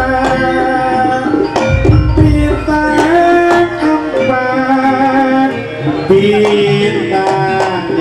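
Live Javanese jaranan ensemble music: hand drums (kendang) under a held melody line that steps from note to note, with deep low strokes about two seconds in.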